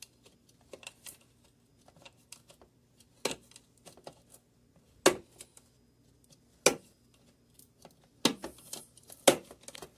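Cheap dollar-store hand-held can opener being cranked around a metal can lid: irregular sharp clicks and crunches as the cutting wheel bites through the tin, a loud one every second or two with smaller ticks between.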